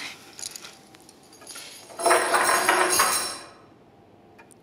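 Metal chain rattling and clinking: a few light clinks, then a louder jangle of the links about two seconds in that lasts over a second.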